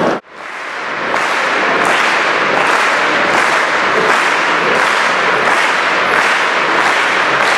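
An audience clapping in unison, about two claps a second, over a dense wash of applause. It fades in just after the start and then holds steady.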